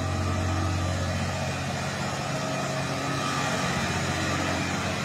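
Fire engine's motor running steadily, a low even hum with no change in speed.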